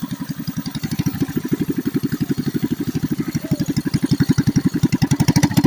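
99cc minibike's small single-cylinder engine idling with an even, rapid putter, growing a little louder near the end.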